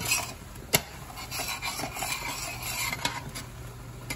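A metal spoon knocking against and scraping through a stainless steel pan of mushrooms simmering in Marsala wine as the wine reduces. Two sharp knocks come in the first second, followed by about two seconds of scraping.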